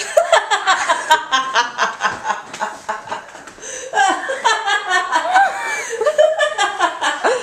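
A woman laughing hard in quick repeated bursts. It eases off about two seconds in and starts up again around four seconds.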